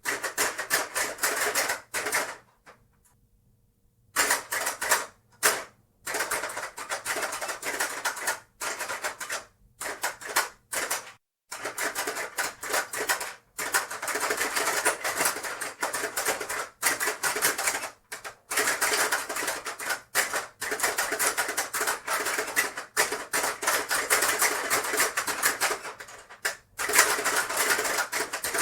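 A Hungry Hungry Hippos game being played: rapid plastic clacking of the hippos' levers and jaws snapping and marbles rattling on the board. It comes in dense bursts with brief breaks, and there is a short pause a few seconds in.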